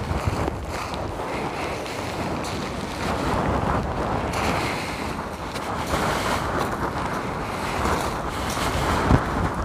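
Wind buffeting the microphone in surging gusts, with one sharp thump near the end.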